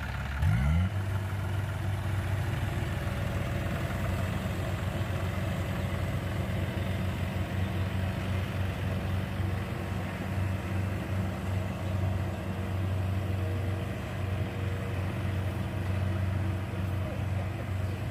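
Diesel engines of a John Deere 4WD tractor and a Kubota DC-68 combine harvester running steadily under load while the harvester tows the mud-stuck tractor and loaded trolley free. One engine revs up sharply about half a second in.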